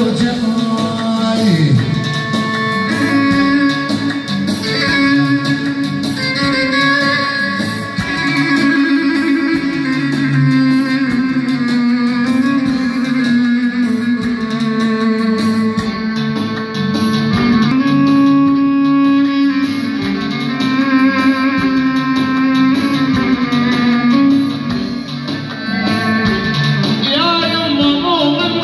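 Electronic arranger keyboard playing an instrumental Arabic folk melody in a guitar-like plucked-string voice over a held low note.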